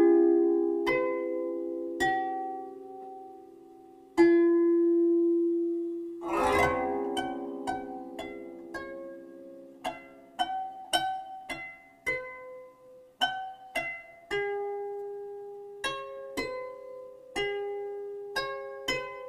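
Gentle background music of plucked, harp-like string notes, each ringing and fading before the next. A short rush of noise comes about six seconds in.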